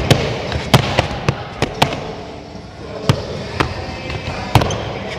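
Skateboard rolling over a wooden skatepark floor, with about nine irregular sharp clacks as the board's tail and wheels strike the floor during tricks.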